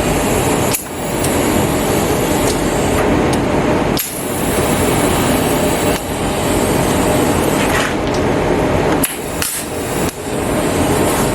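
Flux-core MIG welding arc crackling and sputtering steadily while tack-welding steel, stopping briefly a few times between tacks.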